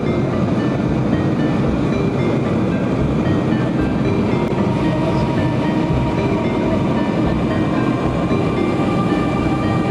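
Steady drone of an aircraft's engines and airflow heard inside the cabin, an even rumble with hiss that does not change.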